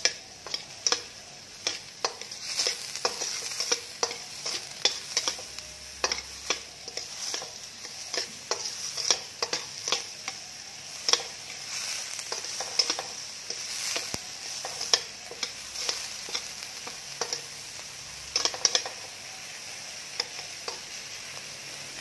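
Chopped onion and garlic sizzling in hot oil in a stainless steel pan, sautéing until fragrant and wilted, while a slotted metal spatula scrapes and clicks against the pan at irregular intervals as they are stirred.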